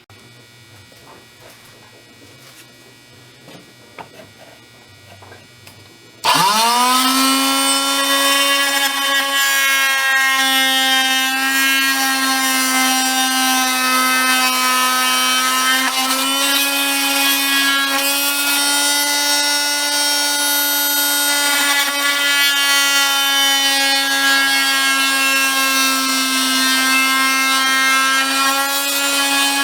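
Harbor Freight variable-speed oscillating multi-tool switched on about six seconds in. Its buzz rises quickly to a steady pitch, and it then runs steadily, wavering slightly as the blade cuts into thin plastic. Before it starts there are only faint light clicks.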